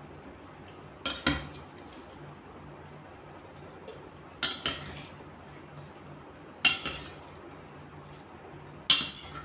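Steel ladle clinking against a stainless steel pot and plate as chicken curry is scooped and served: four short bursts of two or three metallic clinks, roughly every two to two and a half seconds.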